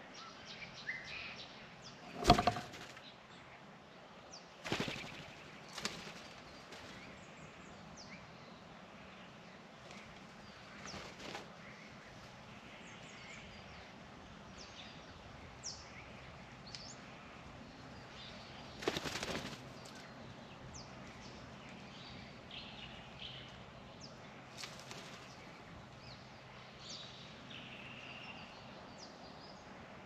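Friarbirds at a birdbath: a few sudden bursts of wing-flapping, the loudest about two seconds in and a longer flutter a little past the middle. Short, scattered bird calls come in between.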